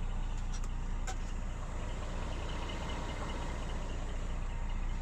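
Scania R420 tractor unit's six-cylinder diesel idling steadily, a low even hum heard from inside the cab.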